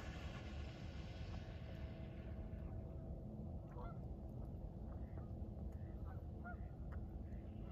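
Waterfowl calling: a handful of short calls spread over the second half, over a steady low rumble.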